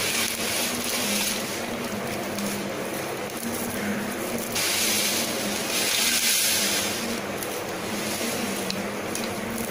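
Water sloshing and splashing in a plastic bowl as hands push dry ragi vermicelli down to soak, the swishing coming and going in patches over a steady low hum.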